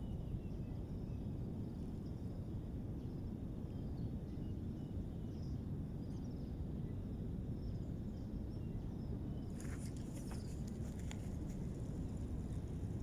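Steady low outdoor rumble of lagoon-side ambience, with faint high chirps of birds or insects. A few soft clicks and rustles come about ten seconds in.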